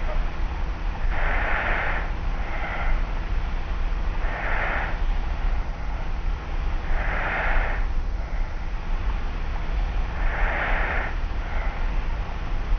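Light snoring of a person asleep on their back: slow, soft breaths about every three seconds, four in all, each followed by a shorter, weaker one. A steady low hum and hiss from the cassette tape recorder lies underneath.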